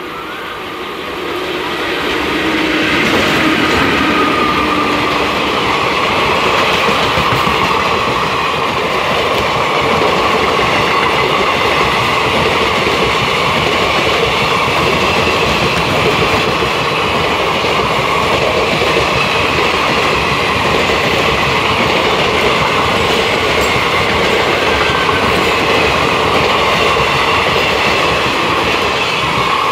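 Express passenger train of ICF coaches running past at speed: a steady loud rush of steel wheels on the rails, with a thin high ringing riding over it. It swells over the first few seconds and then holds.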